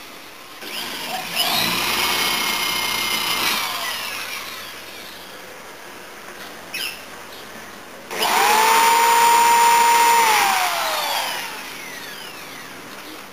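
Electric drill run twice. Each time the motor whine rises, holds for about two seconds, then winds down, and the second run is louder.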